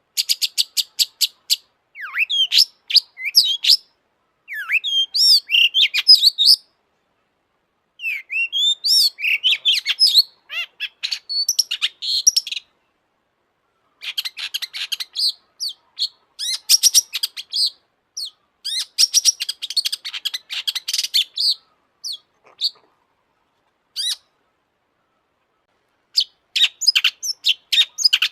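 Long-tailed shrike (cendet) singing in a run of bouts, each a fast stream of chattering, ticking notes mixed with short sliding whistles, broken by brief pauses of a second or two.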